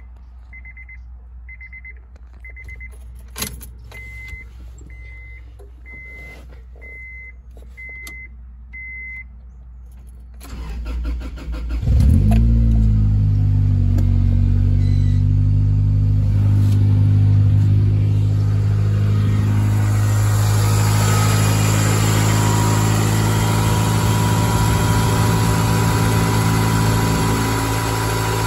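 Dashboard warning chime beeping about ten times at an even pace. Then the 1996 Honda Accord's F22B1 2.2-litre four-cylinder is cranked by the starter, catches after about a second and a half, flares up briefly and settles into a steady idle.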